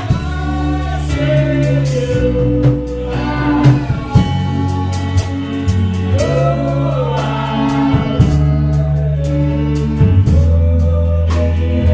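Gospel worship music with singing over sustained bass notes and a steady drum beat.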